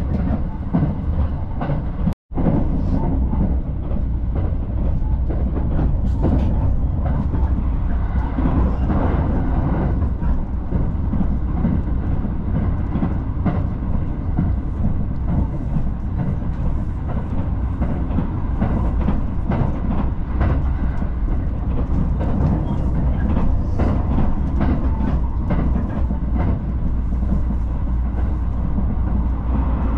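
Passenger train running along the line, heard from inside the carriage: a steady low rumble of wheels on rail with faint scattered clicks. The sound cuts out for an instant about two seconds in.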